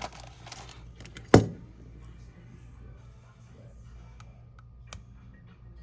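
A single sharp knock, a hard object set down or tapped on a repair bench, with a short rustle of handling just before it and a few faint clicks later, over a steady low hum.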